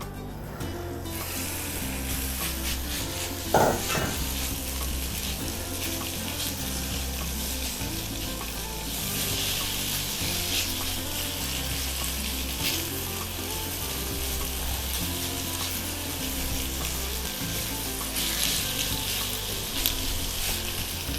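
Flour-coated chicken pieces sizzling in hot oil in a fry pan, browning. The sizzle starts suddenly about a second in and swells louder twice later on. There is one sharp knock about three and a half seconds in, and background music with a steady bass line plays underneath.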